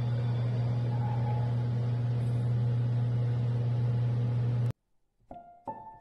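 A steady low mechanical hum at one constant pitch that cuts off abruptly about three-quarters of the way through. After a brief silence the first few notes of a piano tune begin.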